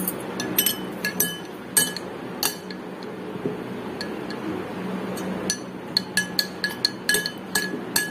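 A spoon stirring chunks of tender coconut and syrup in a tall drinking glass, clinking against the glass. A few spaced clinks come first, then quicker ones, about two or three a second, over the last few seconds.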